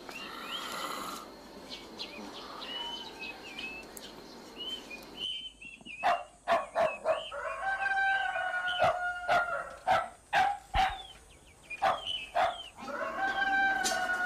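Birds chirping over a steady hiss, then about five seconds in the sound changes to louder farmyard animal calls: long held crowing calls mixed with many short, sharp calls.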